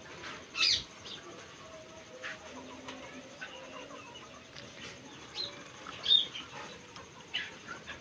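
Ringneck parrot (rose-ringed parakeet) giving a few short, sharp, high calls with gaps between them. The loudest come about half a second in and about six seconds in.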